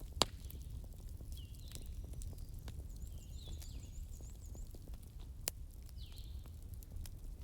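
Campfire crackling, with a low steady rumble and sharp pops of burning wood, the loudest just after the start and another about five and a half seconds in. Birds call several times in the background, including a quick run of high chirps.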